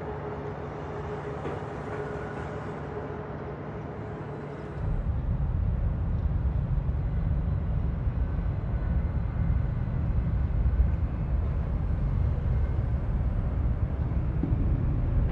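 Steady mechanical rumble with a faint held tone, which suddenly becomes much louder and deeper about five seconds in.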